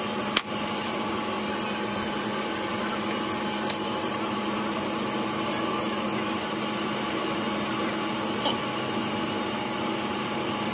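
Steady running noise of a 20-inch Jet bandsaw, with its dust collector drawing air, running without cutting. There is a sharp click about half a second in and a lighter tick a few seconds later.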